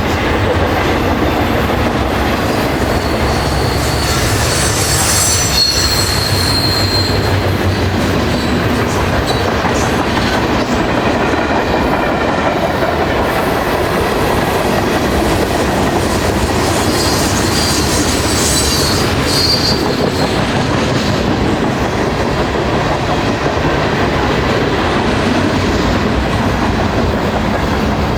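Freight train cars rolling past close by: a steady rumble and clatter of wheels on rail, with high-pitched wheel squeal rising twice, about five seconds in and again past the middle.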